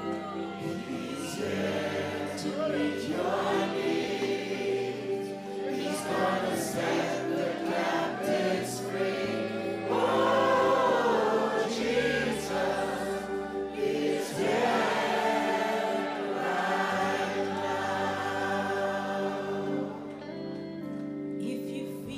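Gospel music: a choir singing over held bass and chord notes.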